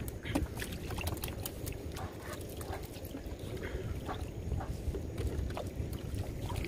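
Wet trammel net hauled over the side of a wooden canoe, with water dripping and splashing off the mesh in many small, irregular drips and clicks over a steady low rumble.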